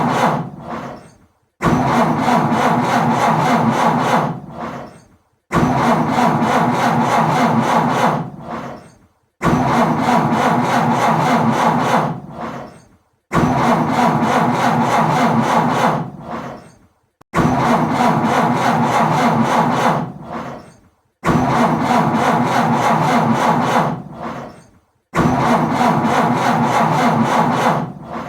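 A car's starter motor cranking the engine in repeated start attempts, one about every four seconds. Each attempt cuts in suddenly, runs about two seconds and trails off without the engine catching: a car that won't start.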